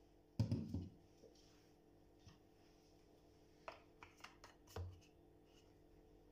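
A short knocking clatter of plastic containers handled on a granite counter, then a few light clicks and taps as a white plastic cap is fitted onto a batter-filled squeeze bottle.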